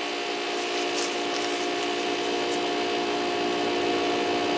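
Large electric drill running steadily with a whining motor, its level slowly rising as it bores into a brick and concrete-block wall.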